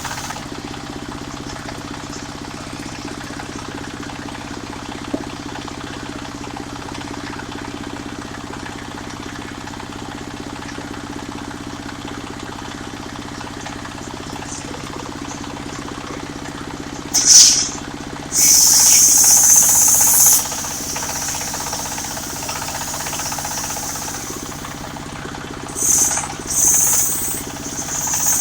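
Mobile circular sawmill running steadily on its engine, with the blade biting into jackfruit wood in loud, high-pitched bursts about two-thirds of the way through and again near the end.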